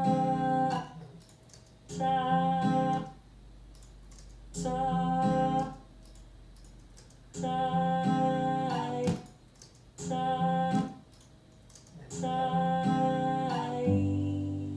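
The same short snippet of a sung vocal take with acoustic guitar, played back about six times in a row with brief gaps. Each time it is the same held note, as alternate takes of the phrase are auditioned one after another for a vocal comp.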